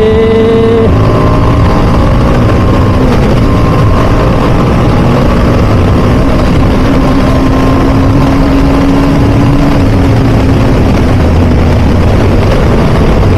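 TVS Apache RR310's single-cylinder engine running steadily at highway speed in sports mode, mixed with loud wind noise on the microphone.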